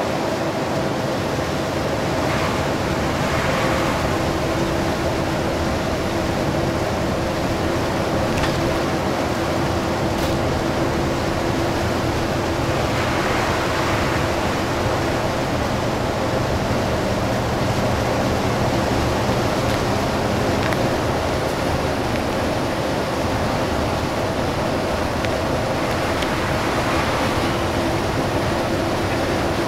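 Heard inside a Hino Selega HD coach driving through heavy rain: a steady hiss of rain and tyre spray over the drone of the diesel engine, with a few steady tones running under it. A few louder swishes of spray come and go, a few seconds in, about halfway through and near the end.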